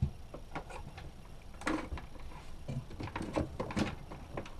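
Scattered light clicks and knocks of wires and terminal hardware being handled at a boat's electrical panel.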